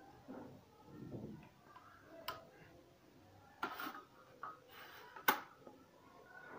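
Scattered knocks and scrapes from handling a trolley suitcase's telescoping handle tubes, with a sharp click a little over five seconds in.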